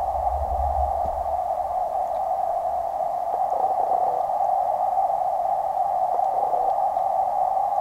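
Steady muffled underwater noise picked up by a camera in a waterproof housing sitting in a creek, with a low rumble that fades out about three seconds in.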